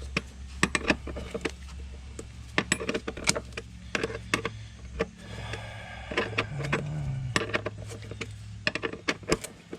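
Irregular sharp metallic clicks of a hand wrench being worked on the battery hold-down bolt of a Dodge minivan, loosening it, over a steady low hum.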